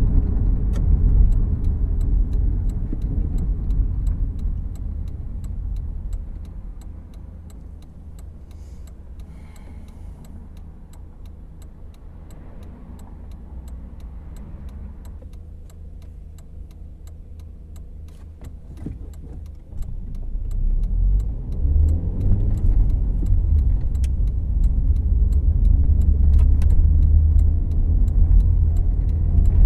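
Cabin sound of a 2014 Volkswagen Jetta Clásico: engine and road rumble that drops away about six seconds in as the car slows and sits quietly idling, then rises again about twenty seconds in as it pulls away and accelerates. A faint regular ticking runs throughout.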